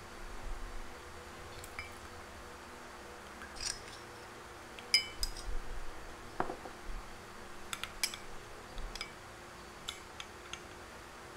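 Metal spoon stirring juice in a glass tumbler, clinking against the glass in a run of sharp, irregular clinks, with one duller knock about halfway through.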